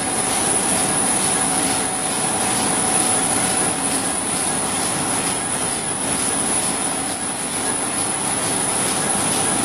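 BOPP/OPP film folding machine running steadily, a continuous mechanical noise with a constant high-pitched whine.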